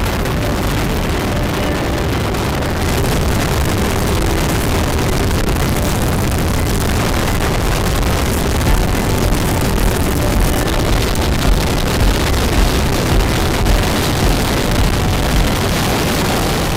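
BMW motorcycle being ridden: its engine running steadily under loud wind rush on the microphone.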